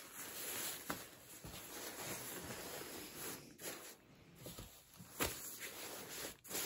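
Feather-light 100% nylon ripstop shell of a Canada Goose Lodge Hoody rustling and crinkling as hands unfold and smooth the down jacket. There are a few sharper crackles, one about a second in and a louder one past five seconds.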